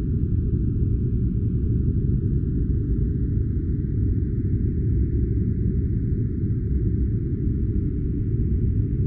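Steady, unchanging noise track of the white-noise kind used for sleep or study, deep and dull, with nearly all its sound in the low range and no events in it.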